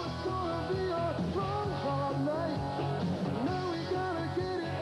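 TV opening theme music in a rock style: a full band with a lead melody that slides between notes.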